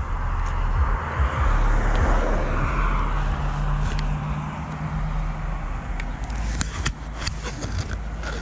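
Wind rumbling on a chest-mounted camera during a bicycle ride, with a passing motor vehicle swelling and fading about two seconds in. A few sharp clicks follow near the end.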